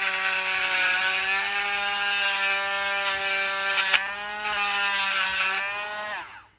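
Small cordless rotary tool running with a steady high whine as its bit grinds a metal washer, roughing up the surface so epoxy will grip. The whine breaks briefly about four seconds in, then the motor is switched off and winds down with falling pitch near the end.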